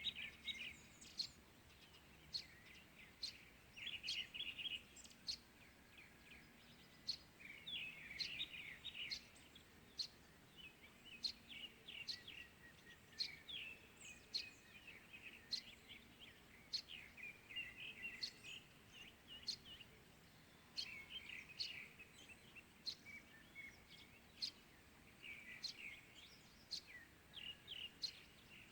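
Several small birds chirping and calling in a morning chorus: a busy stream of short chirps, twittering phrases and quick sharp high notes, faint over a low steady background hiss.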